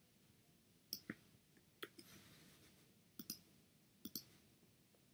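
Faint computer mouse clicks: four or five short clicks, mostly in quick press-and-release pairs, spread over a few seconds.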